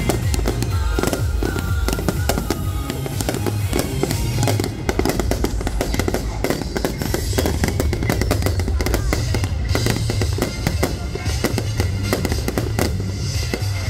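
Aerial fireworks shells bursting and crackling in quick succession, many sharp bangs throughout, over loud music with a heavy bass beat.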